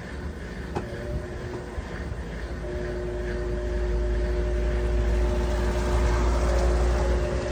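Consul CWH11 washing machine in its spin cycle, the drum spinning up: a steady motor hum over a low rumble that grows louder through the second half. The spin runs normally.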